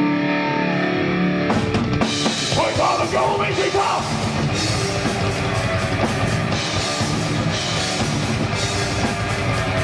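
Heavy metal band playing live: held notes for about a second and a half, then the drums and guitars come in together at full volume.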